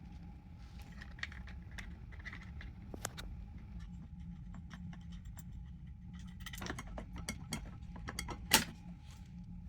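Light metallic clicking and rattling at irregular intervals over a steady low hum, with one sharp, loud click near the end.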